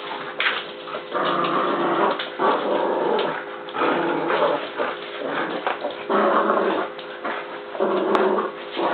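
Puppies growling in repeated short bouts while playing tug-of-war: play growls, not aggression.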